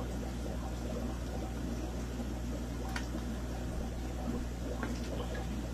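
Aquarium filter running: a steady low hum with water bubbling. A light click about three seconds in, and fainter ones near the end, as a plastic RC truck is handled.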